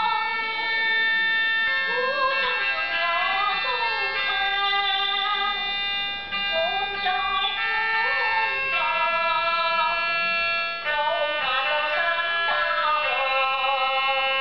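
Elderly woman singing a song with held notes, accompanied by an electronic keyboard, heard as playback through a television's speaker.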